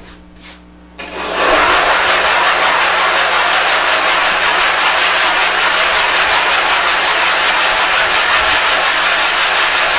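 A 1000-grit water stone rubbed hard in circles on dry abrasive over a glass plate. It makes a loud, steady grinding hiss that starts suddenly about a second in. The stone is being flattened to grind out a gouged low spot.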